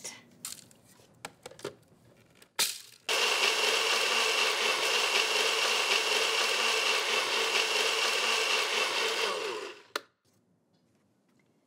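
Personal blender with its cup pressed down on the motor base, running steadily for about seven seconds as it blends frozen dragon fruit, banana and berries into a smoothie, then winding down. A sharp click comes just before it starts and another just after it stops.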